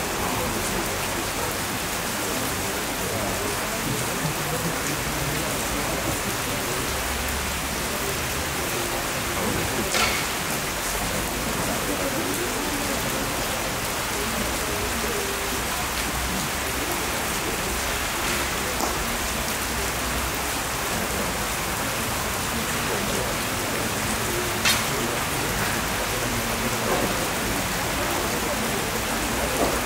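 Steady hiss of rain falling, with a few sharp snaps from the kyudo archers' shooting, the loudest about ten seconds in and another near twenty-five seconds.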